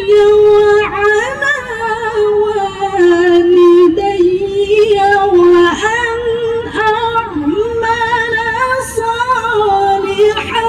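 A woman's voice reciting the Quran in melodic tilawah style, holding long notes with ornamented, wavering turns.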